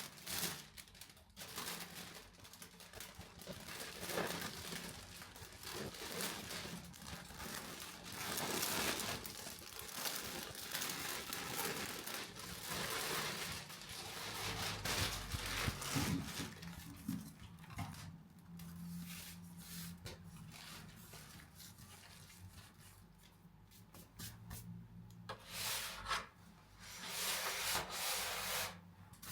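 Rubbing, rustling and crinkling of things being handled, in irregular bursts.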